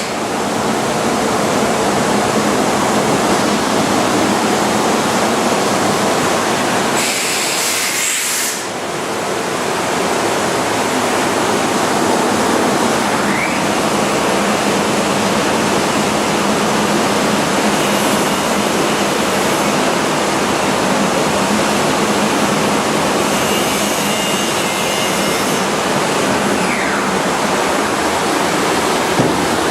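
CNC wood router running: a loud, steady rushing noise. About seven seconds in, a brighter high hiss comes in, then stops with a short drop in level.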